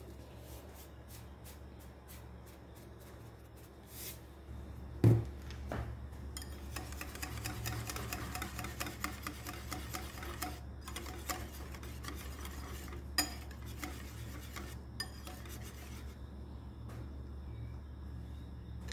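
A wire whisk beating a yoghurt sauce in a bowl, a fast run of scraping and clicking as the wires strike the bowl's sides. It stops near the end. About five seconds in there is a single sharp knock, the loudest sound.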